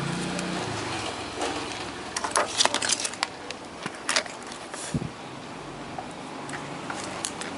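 Small tools and wire being handled on a workbench: a quick cluster of light clicks and taps a little over two seconds in, another click about four seconds in, and a dull knock about five seconds in, over a steady faint hiss.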